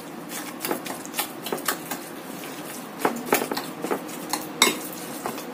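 Metal spoon stirring minced chicken dumpling filling in a ceramic bowl, scraping and clinking irregularly against the bowl, with a couple of louder clinks about three and four and a half seconds in.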